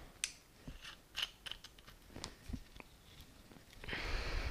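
Small plastic parts of a GoPro tripod-mount adapter being handled and fitted, giving scattered light clicks and ticks, followed by a short rustling scrape near the end.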